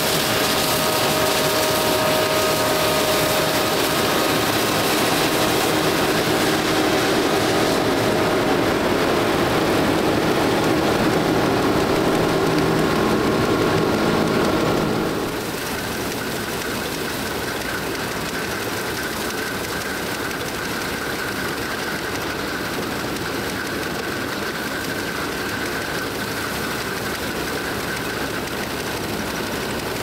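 Nexat combine harvester running steadily while harvesting canola: a continuous machine drone with steady whining tones. About halfway through the sound changes abruptly to a slightly quieter run with a higher whine.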